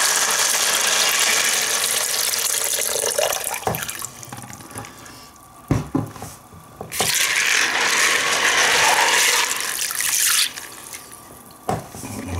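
Water poured onto dry maple peas in a plastic bucket, splashing as the bucket fills. The pour tapers off about three seconds in, a few knocks follow, and a second pour runs for about three seconds from about seven seconds in.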